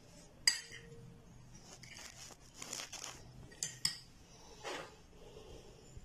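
Steel spoons clinking against small glass bowls and scraping through sticky, syrup-coated pieces of candied watermelon rind as food colour is stirred in. A sharp clink about half a second in is the loudest, with two more quick clinks near the middle and softer scrapes between.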